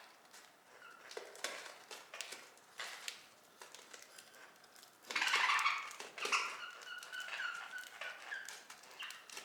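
Budgerigars chirping and chattering in short wavering calls, with scattered small clicks and taps throughout. A louder rasping burst comes about five seconds in.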